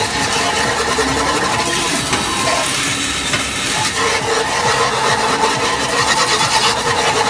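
Steady arcade din: a target-shooting race game's electronic tones and effects, with held beeping tones over continuous machine noise.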